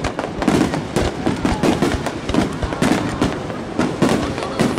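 Dense barrage of aerial firework shells bursting, many sharp bangs overlapping in rapid succession, several a second.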